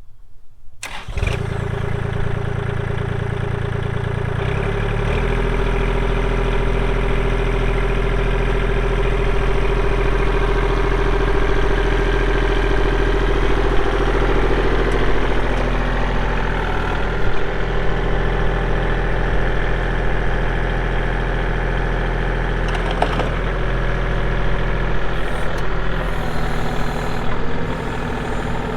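Kubota L2501 tractor's three-cylinder diesel engine starting about a second in, then running steadily, its note shifting about five seconds in.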